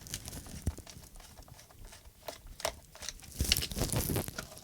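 Small clicks and taps of a plastic radio transmitter being handled and turned over for disassembly, with a louder rustling, scraping stretch about three and a half seconds in.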